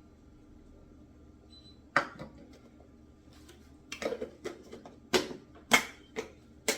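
A metal strainer full of flour being knocked against a mixing bowl to sift it: one sharp knock about two seconds in, then a run of sharp taps about twice a second.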